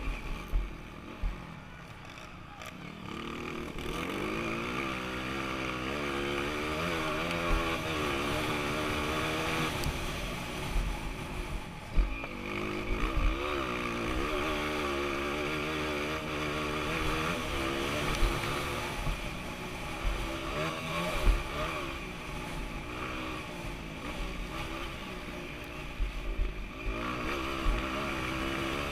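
Tuned Honda CRF230's single-cylinder four-stroke engine revving up and down through the gears under hard riding, heard from a camera on the bike with wind buffeting on the microphone. It is quieter for the first few seconds, then picks up, and sharp thumps from the bike hitting bumps break in now and then.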